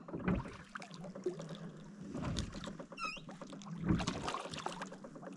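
Fishing reel being wound in to land a hooked trout, a dense run of fine clicks over a steady low hum, with a few dull knocks.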